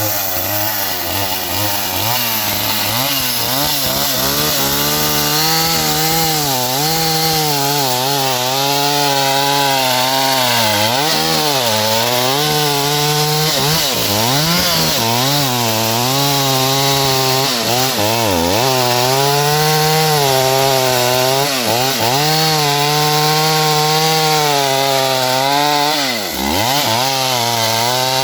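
Stihl 038 AV two-stroke chainsaw engine running at high revs, its pitch repeatedly dropping and climbing back up.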